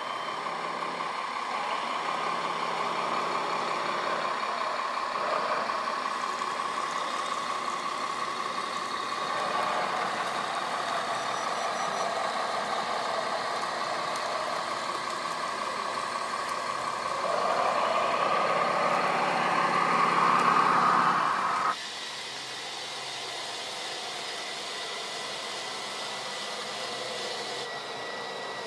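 Radio-controlled model construction machines working: the electric hydraulic pumps and motors of a model excavator and wheel loader whine steadily, rising louder for a few seconds before cutting off abruptly about 22 seconds in.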